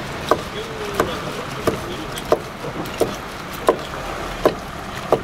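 A steel cleaver chopping sundae (Korean blood sausage) into pieces on a wooden cutting board: about eight sharp chops at an even pace, one roughly every two-thirds of a second.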